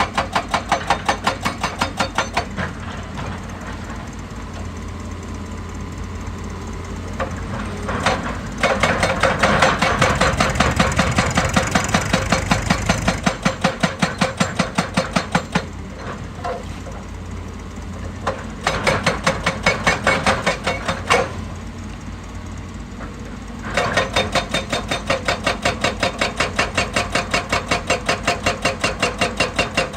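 Excavator-mounted hydraulic breaker hammering rock in runs of rapid, evenly spaced blows, several a second. It stops and starts again a few times, with the excavator's diesel engine running in the gaps.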